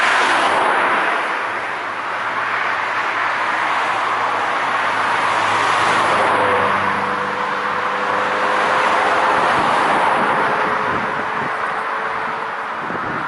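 Cars passing close by on a road, their tyre and engine noise swelling and fading as each goes past: one at the start and more in the middle. A low steady engine hum runs underneath.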